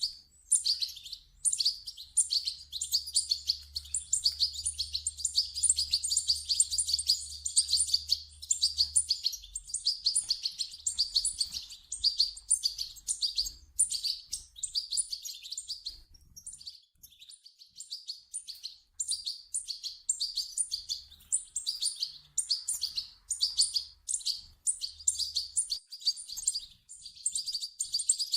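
European goldfinch chicks' begging calls: rapid high chirps in long unbroken runs, with short pauses between runs.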